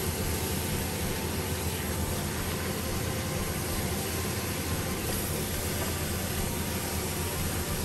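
Pig trotter pieces frying in a stainless steel pan while being stirred with a spatula: a steady sizzling hiss over a constant low hum.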